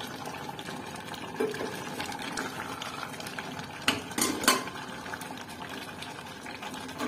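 Metal ladle stirring mutton curry in an open pressure cooker, scraping and clinking against the pot a few times, the loudest about four seconds in, over a steady hiss.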